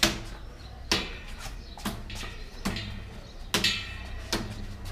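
Bare knuckles punching a hanging plastic PET soda bottle: six sharp smacks a little under a second apart, in an even rhythm.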